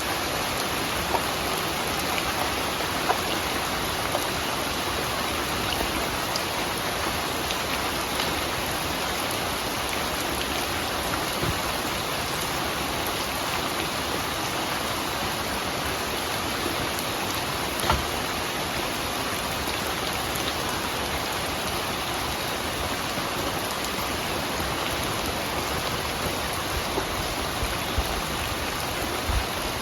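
Steady, even rain falling, with scattered individual drops ticking out above the wash and one sharper drop hit about two-thirds of the way through.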